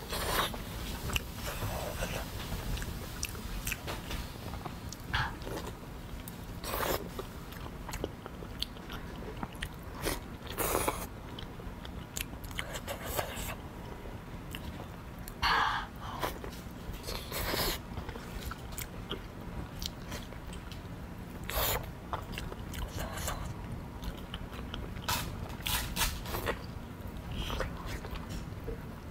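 A person eating close to the microphone: bites and chewing, with short mouth and food sounds coming irregularly every second or few.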